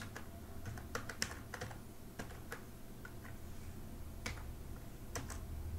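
Typing on a computer keyboard: scattered, irregular keystrokes with a pause in the middle, over a faint steady low hum.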